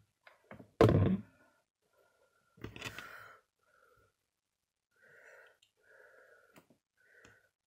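Handling noises at a craft table: one dull knock about a second in, then a quieter scrape near three seconds and faint rustles as fingers press string and a flattened aluminium coffee capsule together.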